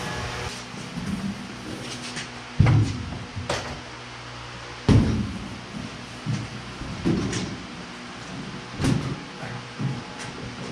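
Heavy metallic clunks from a bench-top sheet-metal brake and the steel sheet being worked in it: a series of knocks a second or two apart, the biggest ringing briefly.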